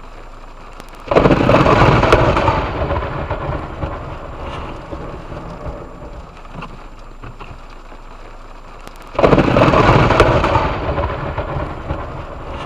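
Two close thunderclaps about eight seconds apart, each starting suddenly and rumbling away over a few seconds, with steady rain in between.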